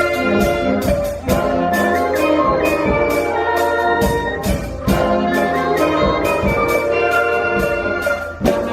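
School band playing, brass instruments carrying held notes over a steady beat of sharp percussion hits, with brief breaks between phrases about a second in and near the end.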